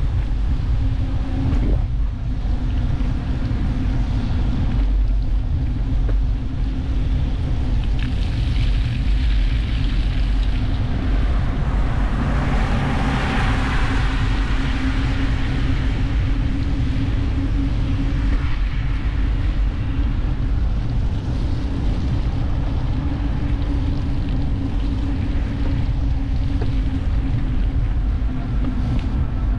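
Wind rushing over an action camera's microphone while cycling, over a steady low rumble and hum. A louder hiss swells and fades about halfway through.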